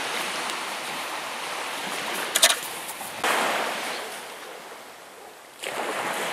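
Sea waves washing onto the shore in three surges, each swelling and then fading away. A short burst of clicks comes about two and a half seconds in.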